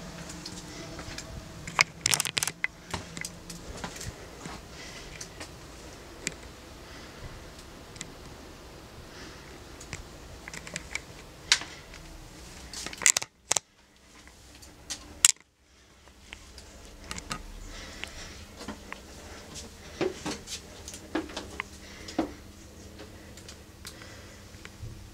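Footsteps and handling noise of someone walking through a doorway and climbing a narrow spiral staircase, with scattered sharp clicks and knocks from the wooden door and latch. The sound drops out briefly twice in the middle, and softer thuds of steps on the stairs come near the end.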